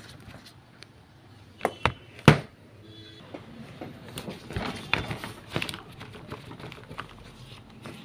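Sharp plastic clicks and knocks as an electric kettle's base is handled and its screws are worked with a screwdriver: a few loud clicks about two seconds in, then lighter, irregular knocks.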